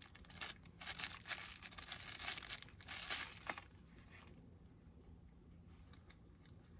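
Clear plastic packaging crinkling and tearing as a clip-on phone LED light is unwrapped, for about three and a half seconds, then a few faint clicks of the light being handled.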